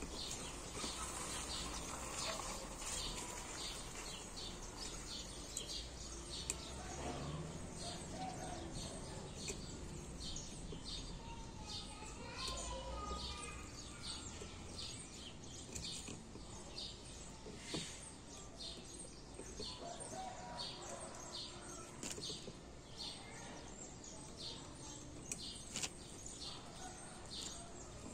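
A bird chirping over and over, short high chirps about twice a second, against steady outdoor background noise, with a few small sharp clicks.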